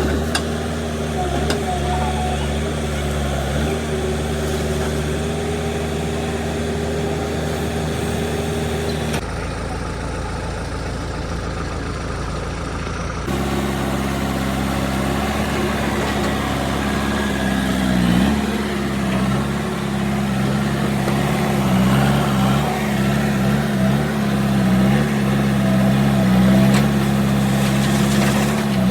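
Heavy machine engine running steadily, its pitch wavering up and down in the second half as it takes load.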